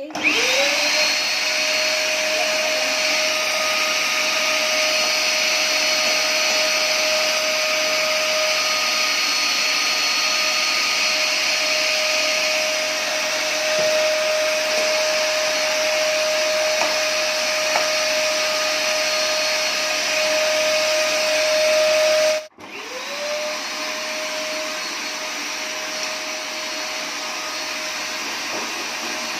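An Olsenmark vacuum cleaner's motor starts, spins up and runs with a steady whine. About 22 seconds in it cuts out abruptly, then spins up again and runs a little quieter.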